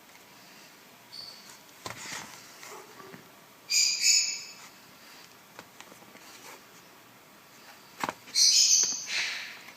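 Faux-leather tablet case being folded and handled to set up its stand: a few light clicks and two loud, high-pitched squeaks of the material rubbing, one just before the middle and one near the end.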